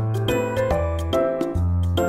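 Light background music: a melody of short notes over a bass line, with a regular percussion tick.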